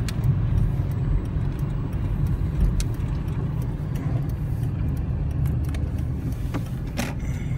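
Car interior noise while driving slowly: a steady low rumble from the engine and tyres, with a few light irregular ticks.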